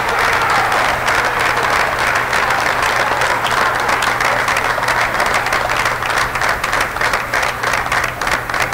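Audience applauding: many hands clapping in a dense wash that thins toward the end, with single claps standing out.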